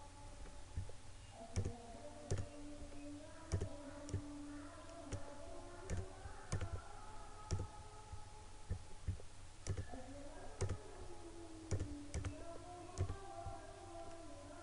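Computer mouse clicking irregularly, about one or two quiet clicks a second.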